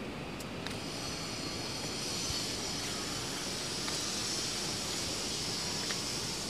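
Steady outdoor background noise: an even hiss and rumble, with a higher hiss that comes in about a second in and holds, and a few faint ticks.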